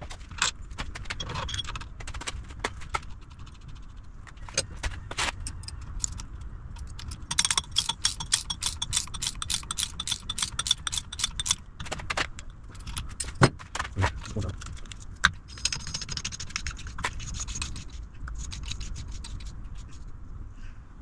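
Metal hand tools and strut parts clicking and clinking while a coilover strut is worked on, with two runs of rapid, even clicking and a few louder single clicks between them.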